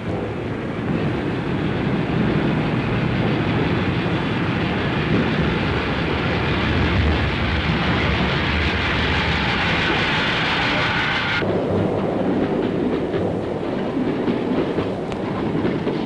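Steam train running at speed: a loud, steady rushing noise of wheels on rails. Its higher hiss cuts off suddenly about eleven seconds in, leaving the lower running noise.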